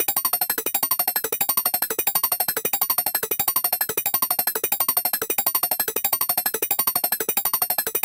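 Rapid, unbroken string of synthetic electronic beeps, many a second, each a short pitched tone with high overtones.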